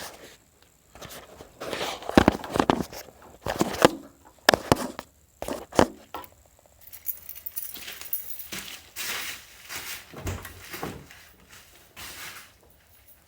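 Irregular footsteps with scattered knocks and rustling handling noises, loudest in the first half; no engine running.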